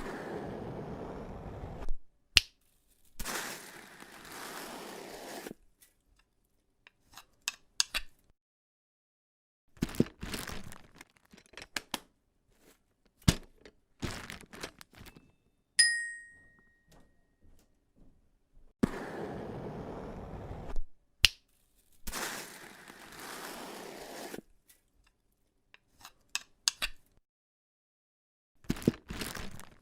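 A string of foley sound effects played on drums: stretches of scraping, rustling noise a few seconds long, sharp clicks and taps, and a single bell-like ping about halfway through. The same run of noise and clicks starts again about two-thirds of the way in.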